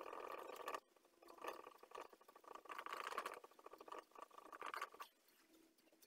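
Polishing cloth rubbed back and forth over the gloss finish on the back of a semi-hollow electric guitar, faint squeaky rubbing in four short bursts with pauses between.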